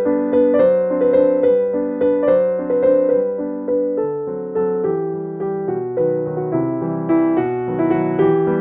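Background music: a piano-like keyboard playing a steady run of notes, each struck and fading.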